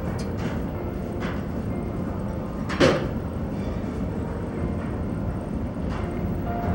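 Steady low rumble of a ferry under way, heard inside its restaurant, with one short, sharp clatter about three seconds in.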